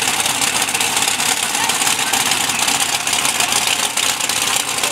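Mega truck racing engines idling loudly and steadily at the starting line of a drag race, with indistinct crowd chatter.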